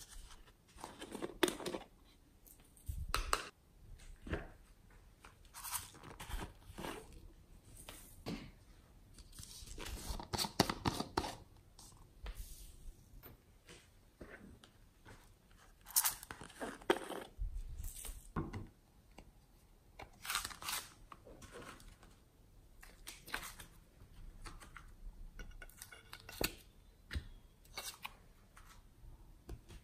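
Hands working soft modelling clay over a tray of slime: squeezing, peeling and pressing clay pieces, heard as irregular bursts of soft tearing and crackling with short pauses between them.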